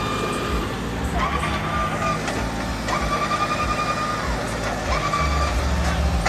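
John Deere 5210 tractor's three-cylinder diesel engine running as the tractor drives across the field. Three or four short high beeps come over it, about a second in, around three seconds in (the longest) and about five seconds in.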